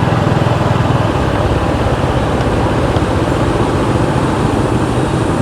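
Steady engine and wind noise of a motorbike being ridden along a road, heavy in the low end.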